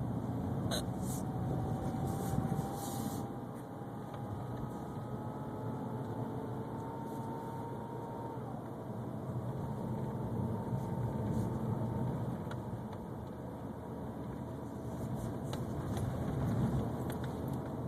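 2011 BMW 328xi with a thin whine over steady road and engine noise while driving. The whine climbs slowly in pitch for several seconds, drops suddenly about halfway through, then goes on fainter.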